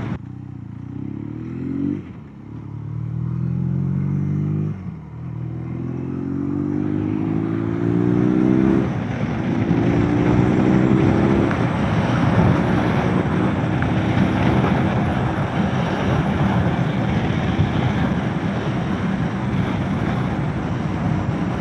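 Motorcycle engine accelerating up through the gears, its pitch rising four times with a drop at each shift, then holding steady at speed under loud wind rush on the helmet microphone.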